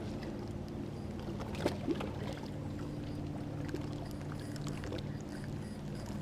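Boat motor running steadily with a low, even hum, with a couple of light knocks about two seconds in.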